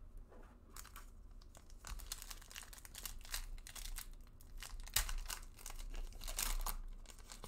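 A 2020 Bowman trading-card pack's foil wrapper being torn open and crinkled by hand: a run of sharp crackles and rips, the loudest about five seconds in.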